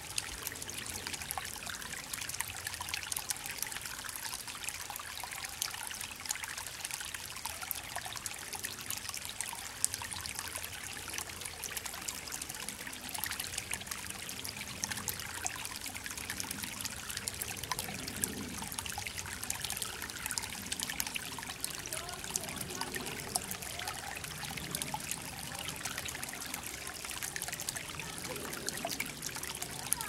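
Shallow forest creek trickling over small stones: a steady, fine splashing.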